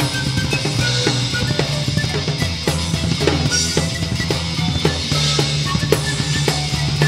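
Live metal band playing an instrumental passage: a drum kit with bass drum and snare hits driving under electric guitars.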